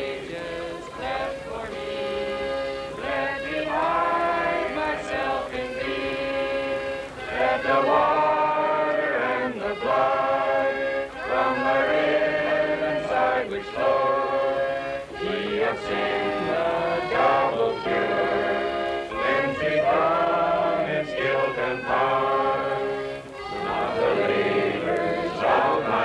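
A group of voices singing together in short phrases with brief breaks between them.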